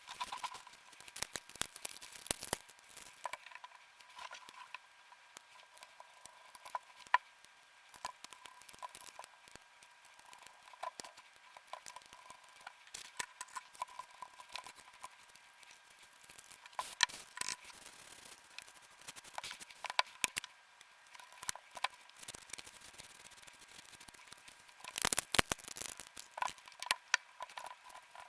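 Hands working on a DualSense controller's small plastic parts: scattered light clicks and taps, with a busier cluster of clicks near the end. A faint steady high whine runs underneath.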